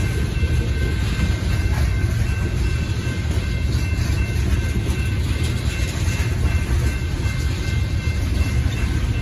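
Hopper cars of a Union Pacific coal train rolling steadily through a grade crossing, their wheels making a continuous low rumble and clatter on the rails. Over it, the crossing bell rings steadily.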